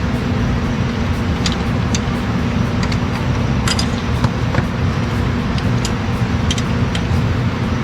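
A steady, loud mechanical drone with a constant low hum, broken by scattered light clicks.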